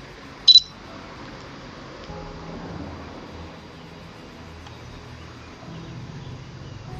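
A single sharp, camera-shutter-like click about half a second in, over soft background music.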